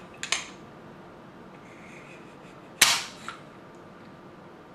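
Ruger 10/22's factory trigger pulled with a trigger pull gauge on an empty chamber. There are a couple of faint clicks near the start, then one sharp metallic snap about three seconds in as the trigger breaks and the hammer falls, at a heavy pull of about 6.5 pounds.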